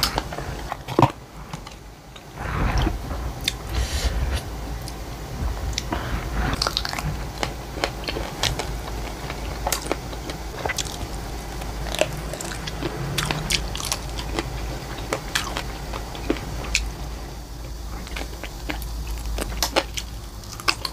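Close-miked chewing and biting on spicy chicken feet, with frequent irregular wet clicks and crunches.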